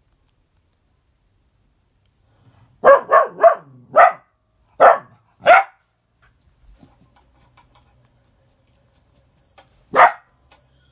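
Dog barking: after a quiet start, a run of six short barks, three in quick succession and then three more spaced out, followed by a single bark near the end.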